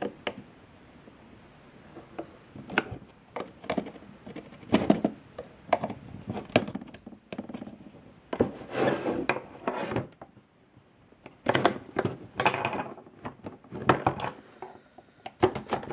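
Cardboard packaging being opened by hand: a small knife slitting the sealing tape, then the inner cardboard tray scraping out of the box and a clear plastic blister being handled, with irregular scrapes, rubs and knocks.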